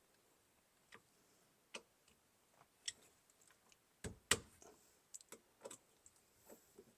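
Scattered light clicks and taps of a screwdriver tightening the small mounting screws of a car's turn signal switch, with a louder knock about four seconds in.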